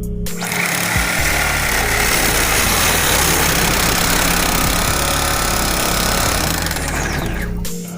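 Handheld power tool running under load on copper boiler piping, a loud steady grinding noise that starts abruptly and winds down with a falling whine near the end.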